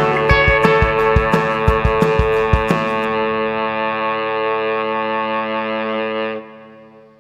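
Background rock music with distorted electric guitar over a drum beat; the drums stop about three seconds in and a held guitar chord rings on, fading out near the end.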